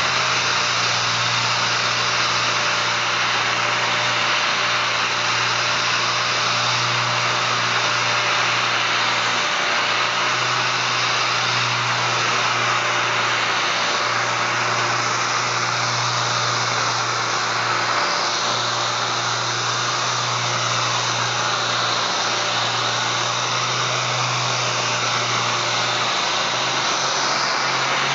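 6-inch random orbital air sander with dust-extraction hose running steadily across a solid surface countertop, an even whirring hiss over a low hum.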